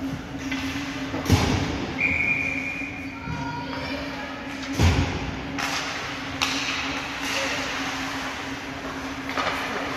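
Ice hockey rink sounds: sticks and puck knocking and thudding, with two heavy thuds about a second in and near the middle and sharper clacks after, over a steady low hum in a large echoing arena.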